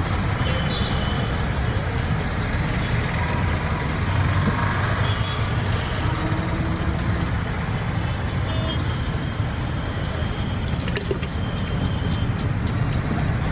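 Steady rumble of street traffic, with a few short high tones and a cluster of sharp clicks about eleven seconds in.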